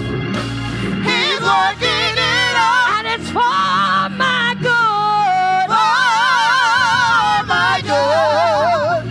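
Small gospel vocal group singing into microphones, several voices layered with wide vibrato and sliding runs, over steady low accompanying notes.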